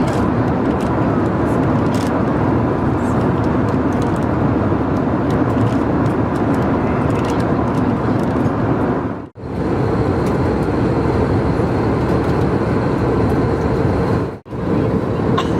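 Steady rush of engine and airflow noise inside an Airbus A320 cabin in flight. It cuts out abruptly twice, for a split second each time.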